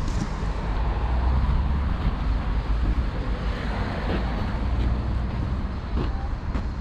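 Road traffic going by: a steady low rumble of passing cars that swells about a second in.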